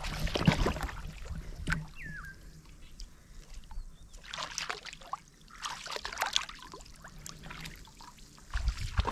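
Pond water splashing and sloshing in irregular bursts as a fishing net is worked, loudest in the first second. A short falling squeak sounds about two seconds in.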